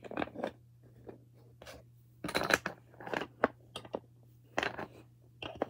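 Plastic dominoes being set one after another into the slots of a plastic domino-building template on a wooden board: a string of light clicks and clacks, the loudest cluster about two seconds in.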